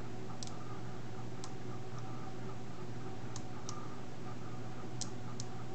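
Small neodymium magnet spheres clicking as units of ball magnets are pressed and snapped onto a half-built magnet-ball polyhedron: about six sharp, scattered clicks over a steady low hum.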